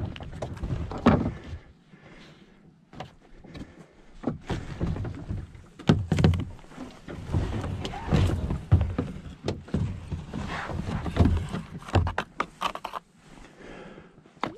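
Kayak paddle knocking and scraping against the plastic kayak hull and the rocks of the bank, with dry reeds rustling, as the kayak is pushed off the shore. The thunks come at uneven intervals, with a quick run of sharp clicks near the end.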